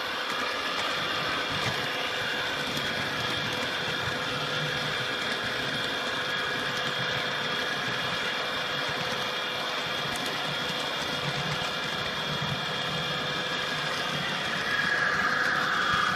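HO-scale model train running along the track: a steady mechanical whir with a constant whine, a little louder near the end.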